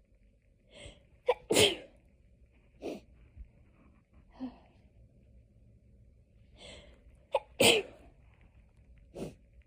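Hay fever sneezing: a short catch of breath, then a loud sneeze, with smaller sneezes or breaths after it. The same sequence repeats about six seconds later.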